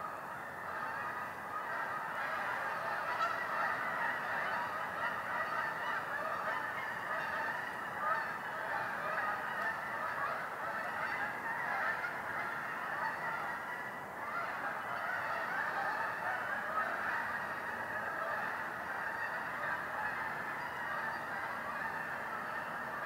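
A dense, unbroken chorus of many animals calling at once, short overlapping honking calls with no break.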